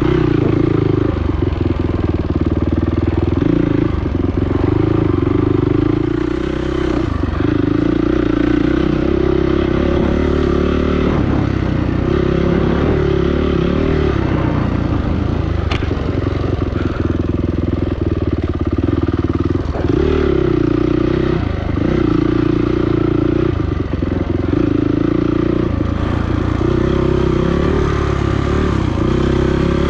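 Off-road racing dirt bike engine heard on board, revving up and down as the throttle opens and closes, with the note dropping away briefly every few seconds. Scattered knocks and clatter come from the bike over rough trail.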